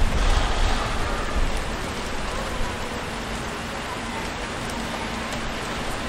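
City street traffic ambience: a steady hiss of traffic with a vehicle's low rumble passing in the first second or two and fading out.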